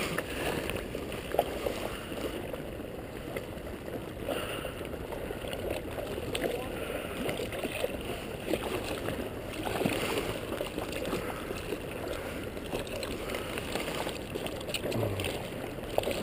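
River current rippling and lapping against a camera held just above the water surface, a steady wash of moving water with small splashes and gurgles.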